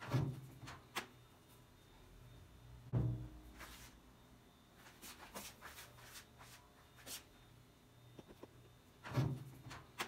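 Handling noise at a top-load washing machine: three dull thumps, one at the start, one about 3 seconds in and one near the end, with small clicks and rustles in between.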